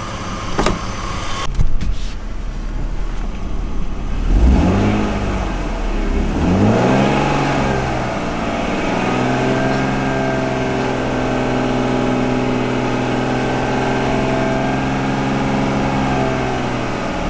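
BMW wagon's engine revved up and down a few times about four to seven seconds in, then held at a steady raised speed to push more power through the jumper cables for a jump-start. A few knocks come in the first two seconds.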